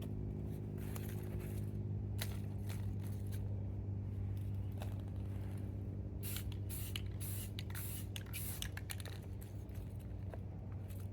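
Aerosol spray-paint can hissing in many short bursts, with the densest run of sprays about six to eight seconds in, as darker camouflage paint is sprayed over greenery laid on the gun. A steady low hum runs underneath.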